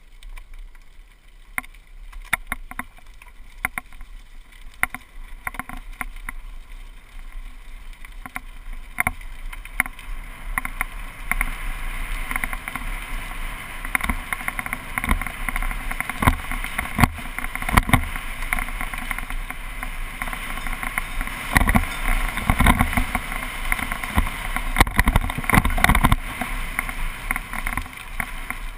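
GoPro HD camera rattling in its mount with many short clicks and knocks, over mountain-bike tyres running on a gravel path. The rattling and road noise grow louder about a third of the way in.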